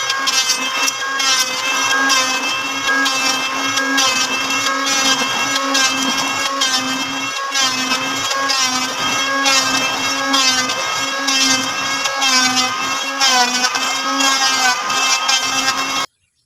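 Electric wood planer running under load as it cuts a wooden table top, a steady motor whine whose pitch wavers with the cut. It cuts off suddenly near the end.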